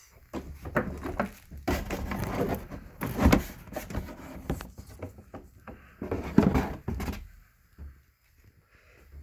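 Unboxing of a plastic spin-mop bucket: rustling, scraping and a run of knocks as it is handled and taken from its packaging, with louder thumps about three and six and a half seconds in.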